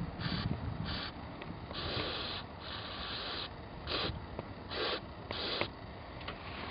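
Aerosol carburetor cleaner sprayed in a series of short hissing bursts, two of them longer near the middle, into the carburetor passages of a Toro Power Max snow blower's Briggs & Stratton engine to clear deposits from old gas.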